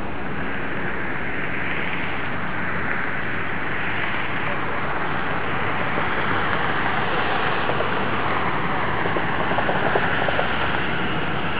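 Jet engines of a departing Delta Boeing 757 at takeoff thrust. A steady rushing noise slowly grows louder as the airliner lifts off.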